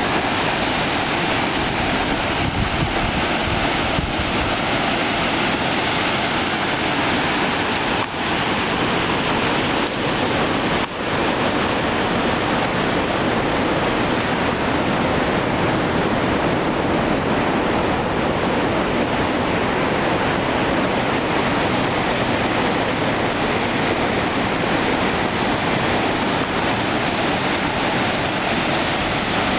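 Shushtar's waterfalls: a loud, steady rush of cascading water, briefly dipping twice in the first half.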